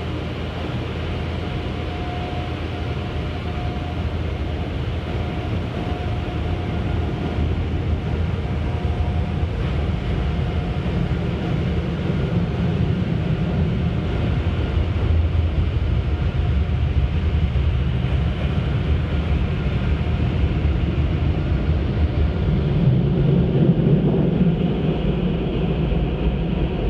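Automatic car wash machinery heard from inside the car's cabin: a steady low rumble that grows somewhat louder toward the end as the car rolls out of the wash bay.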